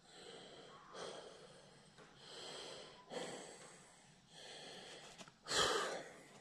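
A man breathing audibly close to the microphone: about six soft, noisy breaths in and out, the last one loudest.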